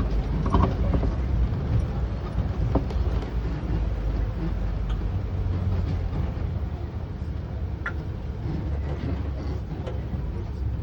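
Safari ride vehicle driving: a steady low engine and road rumble, with a few faint clicks.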